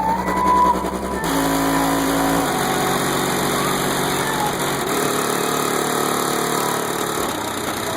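Music played loud through a car's aftermarket stereo with 12-inch subwoofers: sustained synth and bass notes that change every second or two, the deep bass strongest in the first couple of seconds.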